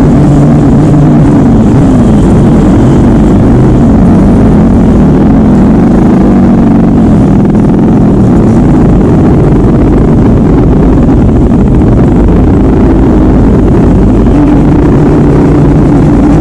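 Yamaha RX-King 135 cc two-stroke single revving loudly through an aftermarket exhaust, its pitch rising and falling in waves through most of the stretch before settling to a steady high note near the end.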